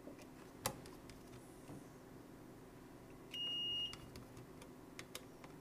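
A single electronic beep, one steady high tone lasting about half a second past the middle, with a sharp click about a second in and a few light clicks near the end as small parts are handled on the bench.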